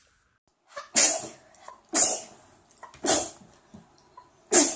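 A young woman sneezing four times in a row, each a sharp, loud burst, about a second apart.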